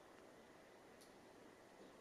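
Near silence: faint room tone with one small click about a second in.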